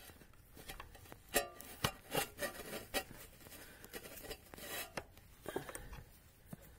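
A 10 mm open-ended spanner clicking and scraping on the nut of the rear air suspension spring's air line fitting, a few irregular metallic clicks as the nut is worked loose to release the air pressure.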